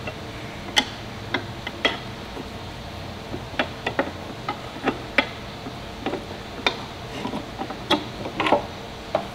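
Steel tire spoons clicking and tapping against a scooter's metal wheel rim as they pry the tire bead up over the rim edge, working around the wheel by hand. The clicks come irregularly, roughly one every half second to second.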